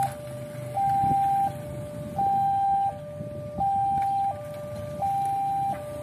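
Automatic railway level-crossing warning siren sounding a steady high–low two-tone cycle, each tone held about two-thirds of a second, the higher tone louder; it signals an approaching train. The tone is clean and smooth: the siren is working normally.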